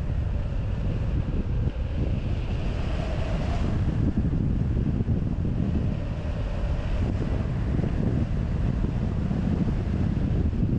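Rushing airflow buffeting a wing-mounted camera's microphone in hang glider flight: a steady, rumbling wind noise.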